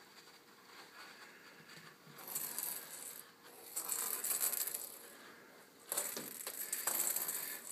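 A kitten batting a small plastic toy ball across a wood floor: three bursts of rapid clattering and rattling, about two seconds in, around four seconds, and again near the end.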